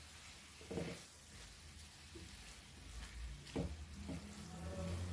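Prawns in masala frying gently in a non-stick pan: a faint sizzle, with two short scrapes of a silicone spatula stirring through the pan. A low droning hum comes in after about three and a half seconds and grows louder near the end.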